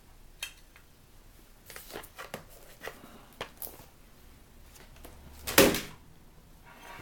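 Grinder parts being handled and set down on a workbench: a string of small metallic clicks and knocks, with one loud clunk about five and a half seconds in.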